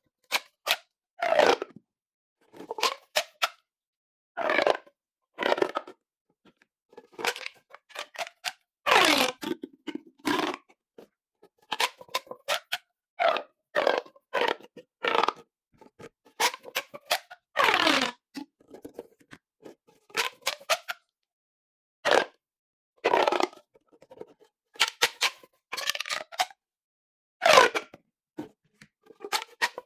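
Corrugated plastic pop tubes being stretched and squashed again and again: short ratcheting buzzes of rapid clicks, some sliding down in pitch, separated by brief pauses.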